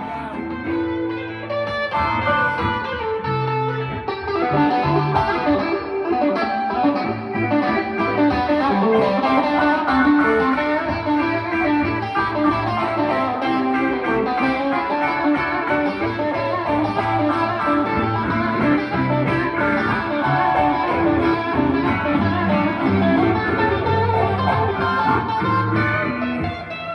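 Live blues guitar playing an instrumental passage: busy picked guitar notes with no singing.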